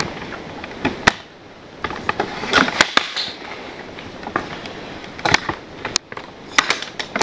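Camera handling noise: scattered clicks, knocks and rustles as the camera is picked up and moved about.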